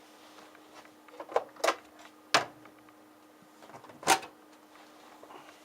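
Four sharp plastic clicks and knocks from handling the filter housing and catches of a heat-pump tumble dryer, the loudest two about halfway through. A faint steady hum runs underneath.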